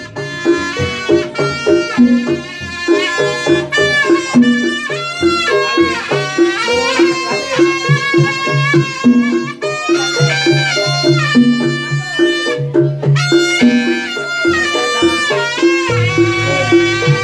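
Live East Javanese jaranan ensemble music: a shrill reed wind instrument plays a sliding, ornamented melody over a looping pattern of low gong-like notes and drums.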